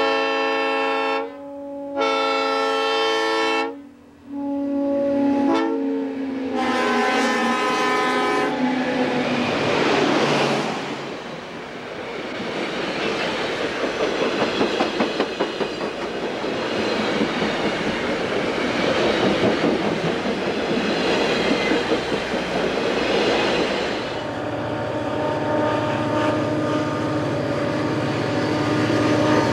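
Diesel locomotive's multi-chime air horn sounding the grade-crossing signal, long, long, short, long, the last blast dropping in pitch as the locomotive goes by. Passenger cars then roll past close with rhythmic wheel clatter. Near the end comes a steady low diesel engine drone.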